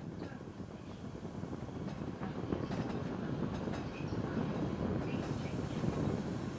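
Wengernalpbahn narrow-gauge train running along the track, a steady rumble that grows louder over the first few seconds, with scattered clicks from the wheels on the rails and a few short high squeaks.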